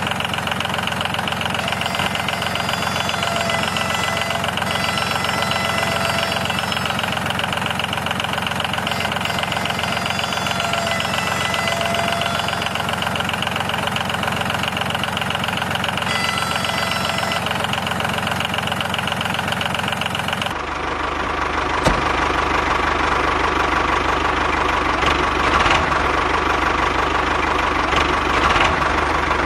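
A motor running steadily, with a rhythmic knock; the sound changes abruptly about 20 seconds in, taking on more low rumble.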